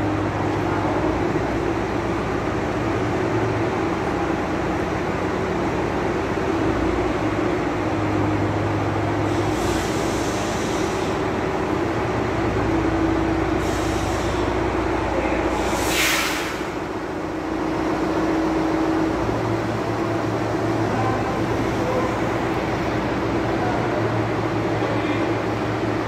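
Truck-mounted mobile crane's engine running steadily with a low hum as the crane holds and moves an overhead crane girder. Three short hisses cut in, about ten, fourteen and sixteen seconds in; the last is the loudest.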